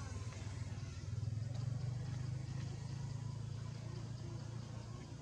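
A steady low rumble, like a distant engine, slightly louder between about one and two seconds in.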